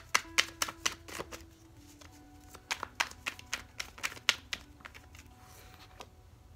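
A deck of tarot cards being shuffled by hand: a quick run of sharp card clicks and slaps, a second run about two and a half seconds in, then a few single clicks near the end.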